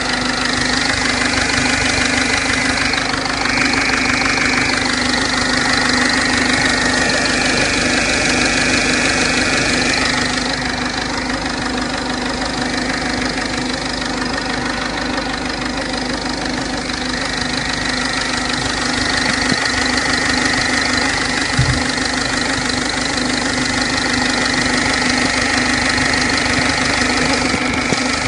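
Ford 1.4 TDCi four-cylinder diesel engine running steadily, apparently at idle, with a higher whine that comes and goes over the steady hum. This is a strange noise whose cause the owner cannot identify.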